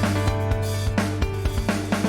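Background music with a steady drum beat and sustained pitched notes.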